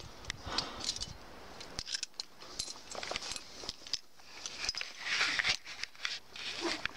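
Metal climbing hardware clinking: carabiners and quickdraws on the rope and harness, heard as scattered light clicks and jingles, with a brief stretch of rustling about five seconds in.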